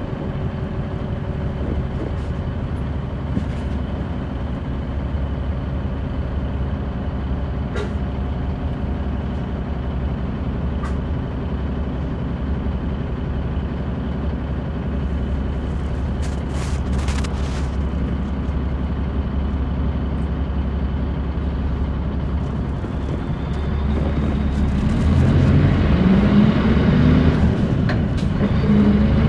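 Mitsubishi Fuso Aerostar bus's six-cylinder turbo diesel heard from on board, idling steadily. Short bursts of air hiss come from the bus's pneumatics about halfway through. About five seconds from the end the engine gets louder and rises in pitch as the bus pulls away, dropping back once for a gear change and rising again.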